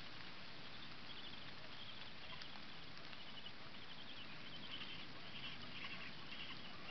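Little blue penguin (kororā) chicks peeping from the nest box: rapid strings of short, high cheeps that grow denser toward the end, over a steady hiss. These are the calls that show chicks have hatched in the burrow.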